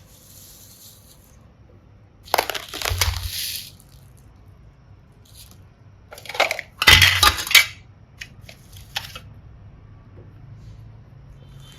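Small hard plastic pieces (mini hearts and seashells) clattering and clinking as they are scooped and let fall, in two bursts a few seconds apart, followed by a few lighter clicks.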